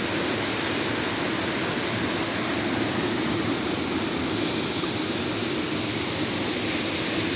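Waterfall rushing steadily: a dense, even noise of falling water, turning a little brighter and hissier about halfway through.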